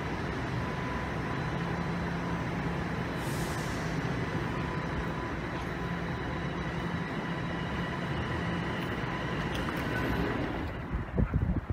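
Steady machinery hum in a subway station concourse, with a few faint steady tones under the noise and a brief hiss about three seconds in. Near the end the hum falls away and wind starts buffeting the microphone.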